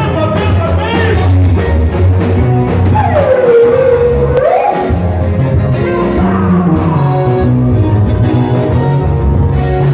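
Live gospel praise music amplified through a PA: a lead singer on a microphone over drum kit and a steady bass line. About three seconds in, the voice holds one long note that dips and then slides up.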